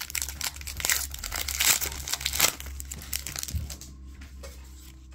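Foil booster pack wrapper crinkling and tearing as a Pokémon card pack is opened, a dense run of crackles that dies down about four seconds in.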